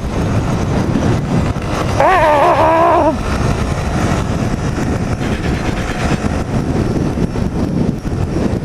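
ATV engine running under heavy wind buffeting the microphone, a dense low rumble; the rider shouts a short "Ah!" about two seconds in.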